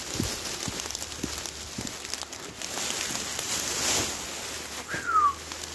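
Steady rain hiss with footsteps on wet stone, about two steps a second. A short falling whistle comes near the end.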